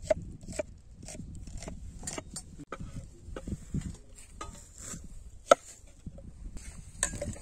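Sharp chopping strokes, evenly spaced at about two a second at first and then more irregular, with one loudest stroke a little past the middle: a blade chopping pork on a wooden board.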